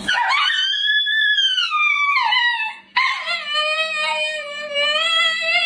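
A dog howling: two long howls, the first rising and then falling in pitch, the second held steadier before dropping off near the end.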